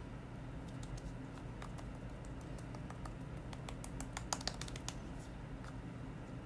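Fingertips patting foundation into the skin of the face: a quick, uneven run of light taps, thickest about four seconds in, over a steady low hum.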